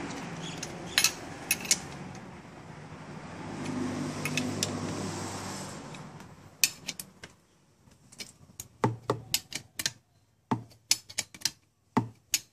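Box-end wrench clinking on bolt heads as the throttle-body and intake bolts on a Kia Sportage 2.0 engine are tightened again: irregular sharp metallic clicks, coming more often in the second half. Under them is a background hum that swells and then fades away about six seconds in.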